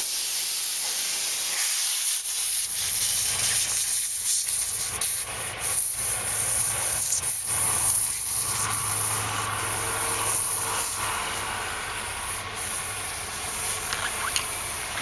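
Steady hiss of high-pressure air leaking from the open puncture in a big-truck tire that still holds about 80 to 90 PSI. A low steady hum joins about three seconds in.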